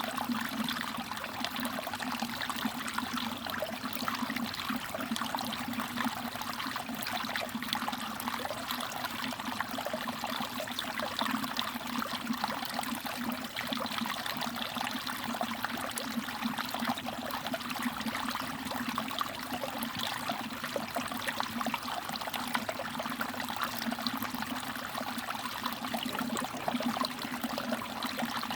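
Mountain valley stream trickling and babbling over rocks, a steady run of small splashes and drips.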